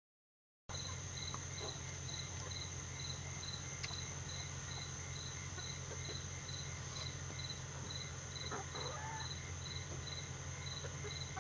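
Insects chirping in a steady, even pulse of about three chirps a second, over a continuous high-pitched drone and a low rumble.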